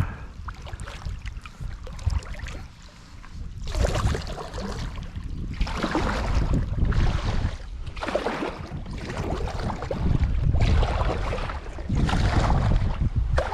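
Kayak paddle strokes swishing and splashing in the water: a surge every second or two from about four seconds in, over a low wind rumble on the microphone.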